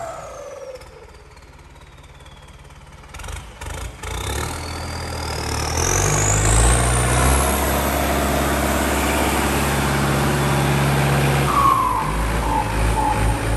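Turbocharged Ford 6610 tractor's diesel engine. Its turbo whine falls away as the revs drop, then the engine is revved and the turbo whine climbs steeply and holds high while the engine runs loud.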